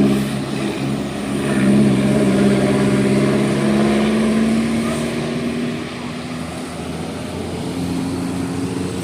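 A large diesel bus engine labouring under load up a steep hill, its pitch rising slowly over the first few seconds, then dropping and easing off about six seconds in.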